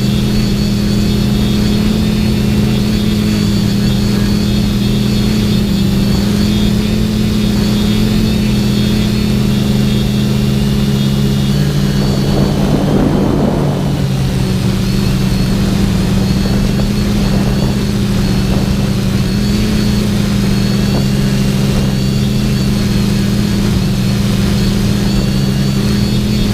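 Brushless motors and propellers of a TBS Discovery FPV quadcopter running steadily in flight, picked up by the camera on its frame as a steady multi-toned hum. A brief rush of noise comes about halfway through.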